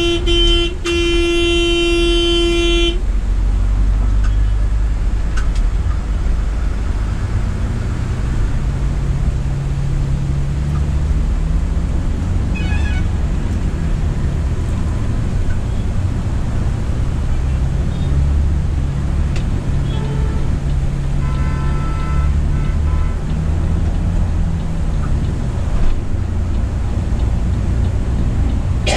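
Volvo B9R coach's rear six-cylinder diesel heard from the cab, its note rising and falling a few times as the bus speeds up and slows. A loud horn blast ends about three seconds in, and a fainter horn sounds about two-thirds of the way through.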